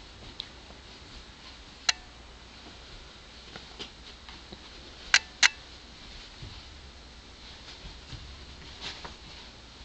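Dog playing with a rope toy on carpet: quiet scuffling and small ticks, with three sharp clicks, one about two seconds in and two in quick succession about five seconds in.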